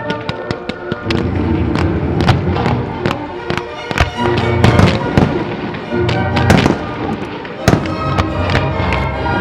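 Display fireworks firing in quick succession: many sharp bangs as fans of comets launch from the ground and aerial shells burst. A music soundtrack plays under the bangs.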